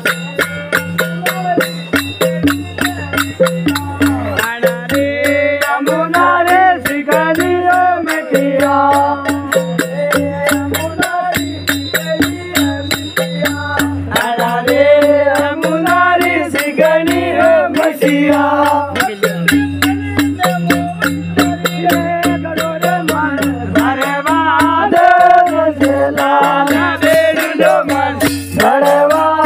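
Gavri folk music: a voice singing a devotional chant-like melody over a repeating low bass pattern and fast, even rattling clicks.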